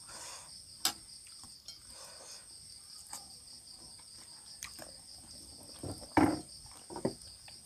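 Crickets chirring steadily in the night background, a continuous high pulsing trill. A few short clicks and a brief louder noise about six seconds in break over it.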